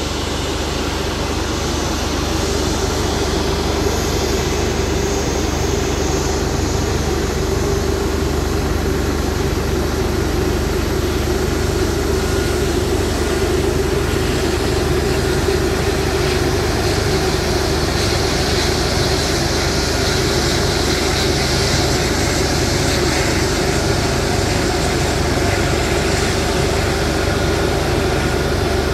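Jet engines of a taxiing widebody airliner: a steady whine and rush that grows a little louder in the first couple of seconds as the aircraft comes closer.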